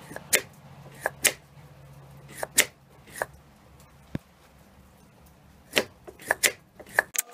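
A dozen or so sharp metallic clicks and taps at irregular spacing, some close together in pairs, from hemostats working inside a Mikuni carburetor to set a pin down into its hole.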